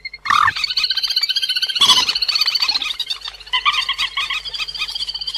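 Recorded calls of the cuốc biển, a rice-paddy waterbird, played as a trapping lure: a rapid high chattering of short notes, many a second, with louder calls about half a second and two seconds in.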